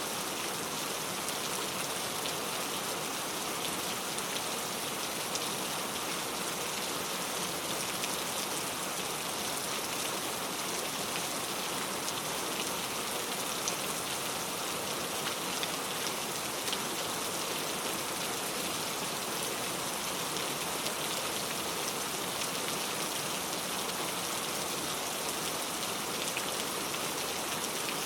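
Heavy rain falling steadily on a leaf-covered road, a dense even patter of drops with no let-up.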